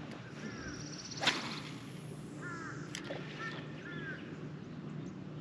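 Crows cawing in short series of two or three, with one quick swish of a fishing rod being cast about a second in, over a steady low hum.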